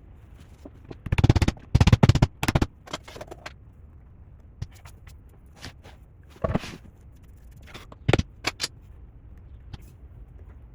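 Workshop noise from tool and hardware handling: a few short bursts of rapid rattling clicks, the loudest about a second in, with scattered single sharp knocks after them.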